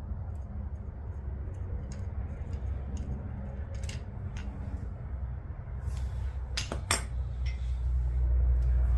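Scattered metallic clicks and clinks of hand tools and bolts being handled at an engine block during a thread repair, the sharpest two close together about seven seconds in, over a steady low hum.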